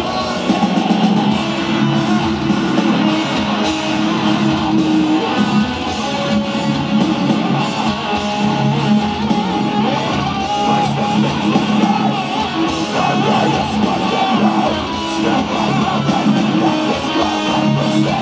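Metalcore band playing live through a festival PA, heard from in the crowd: distorted electric guitars, bass guitar and drums in a loud, continuous guitar-led passage.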